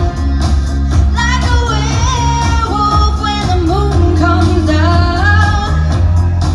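A woman singing live into a microphone over a pop track with a heavy bass line and a steady drum beat. Her voice comes in about a second in with a wavering, ornamented melody and drops out near the end, leaving the beat.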